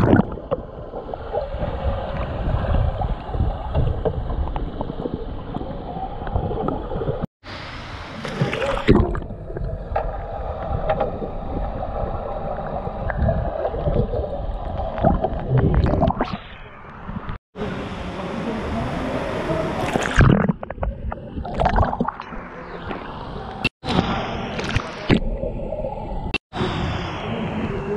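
Muffled underwater gurgling and sloshing of pool water as a kayak capsizes and is rolled back upright, the paddle sweeping through the water, with irregular splashy swells. The sound breaks off briefly four times.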